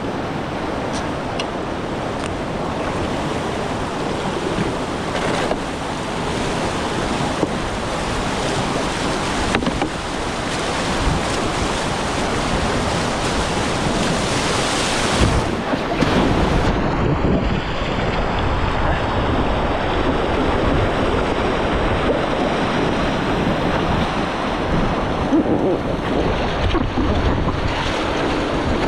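Steady rush of river water with wind buffeting the microphone. About halfway through, the sound turns duller as the highest hiss drops away.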